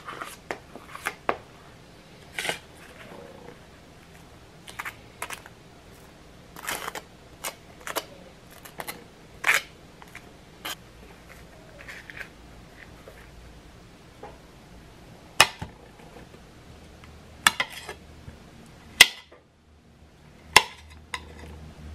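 Table knife scraping whipped cream cheese out of a plastic tub and spreading it on a toasted bagel: an irregular string of short scrapes and clicks. A few sharper clicks come near the end, as the knife cuts a peeled banana on a ceramic plate.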